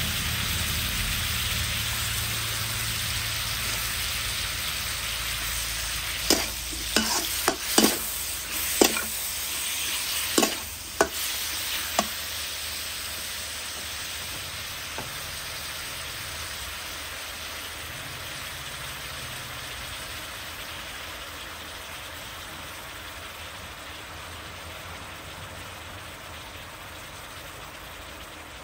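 Pork frying in a wok, a steady sizzling hiss that slowly dies down. Between about six and twelve seconds in, a metal spatula knocks against the wok about eight times as the meat is stirred.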